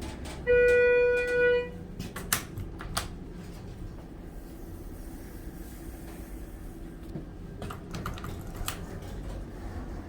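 Elevator electronic chime: one steady, pitched beep lasting about a second, followed by a few sharp clicks over a low, steady hum.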